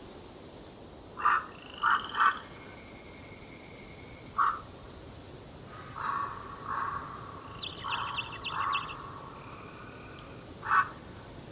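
Forest birds calling over a steady background hiss: short, loud, harsh calls repeated five times, with thin whistled notes and a quick trill between them in the middle.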